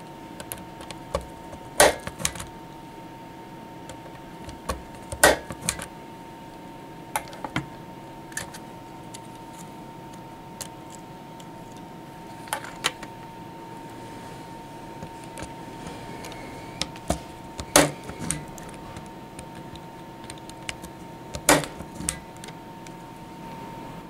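Spring-loaded impact punch-down tool with a 110 blade, set on high, snapping as it seats and trims Cat5e conductors into a patch panel's 110 block: about half a dozen sharp clacks several seconds apart, with lighter clicks of handling between. A faint steady hum sits underneath.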